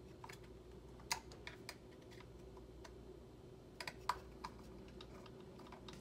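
A few faint, irregular light clicks and taps: fingers handling a Mac mini's cooling fan and seating its small screws.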